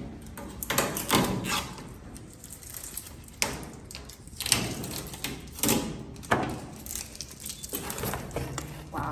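Packaging being handled and pulled off a new cooker during unboxing: irregular rustling, scraping and knocks, about nine separate strokes.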